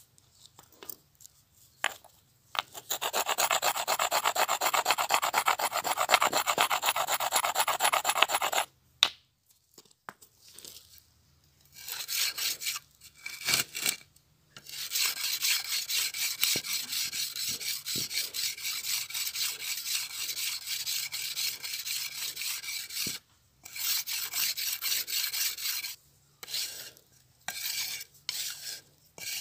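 A curved knife sharpened on a wooden sharpening board, the blade stroked fast back and forth along it: a quick, even scraping rasp in long runs with short pauses and a few brief bursts between them.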